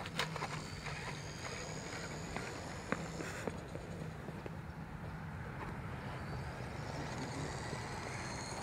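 Faint high whine of electric RC car motors, gliding slightly up and down in pitch, over a steady low hum, with a few light clicks.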